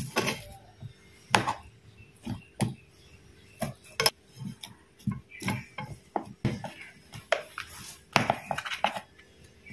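A plastic rice paddle pressing and tapping a biscuit-and-condensed-milk cake mixture down firmly into a lined metal baking tin, packing it tight so no air gaps remain. It makes irregular knocks and scrapes, with a few sharper taps.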